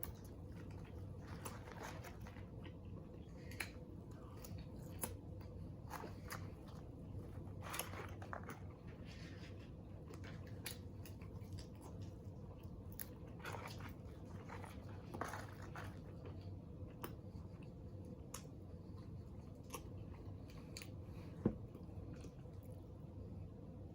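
Close-up chewing and biting of french fries, with scattered small crunches and mouth clicks over a steady low hum. There is one sharper click near the end.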